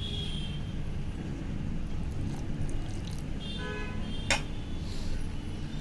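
Wire whisk stirring thick flour-and-curd batter in a stainless steel bowl, with one sharp clink of metal on metal a little over four seconds in, over a steady low background hum.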